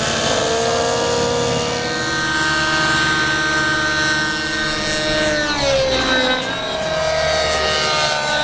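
Radio-controlled model helicopter flying, its rotor and drive giving a steady, loud whine of several pitches. The pitch dips and then climbs back about six seconds in.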